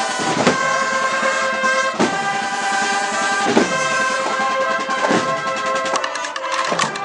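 A marching brass band playing a slow processional march: brass holds sustained chords over a drum stroke about every second and a half.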